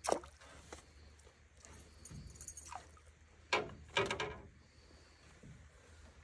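A few short splashes and knocks as a large pike is handled over the side of a small boat, its tail slapping the water: one sharp sound at the start and two louder ones about three and a half and four seconds in.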